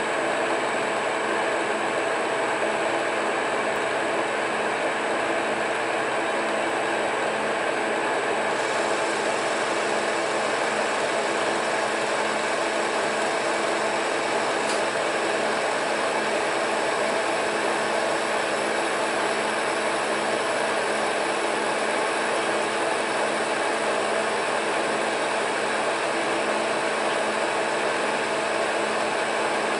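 Monarch metal lathe running steadily under power, with a hum of fixed tones from its gearing, while a boring pass opens up the bore of a shotgun choke. A higher hiss joins about eight and a half seconds in.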